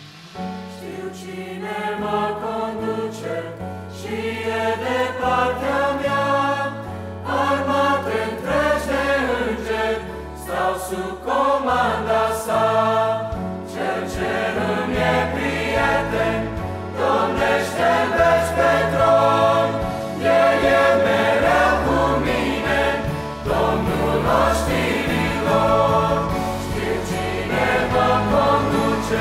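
Mixed choir of young men's and women's voices singing a Christian hymn, over instrumental accompaniment with held bass notes that change in steps.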